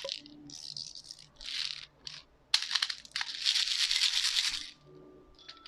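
Plastic airsoft BBs rattling and scraping through a BB loader into a gas blowback pistol magazine. They come in several scratchy bursts, the longest about two seconds.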